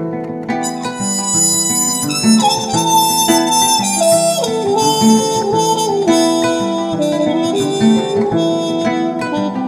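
Instrumental passage of a song: a held lead melody whose notes slide between pitches, over a repeating guitar pattern.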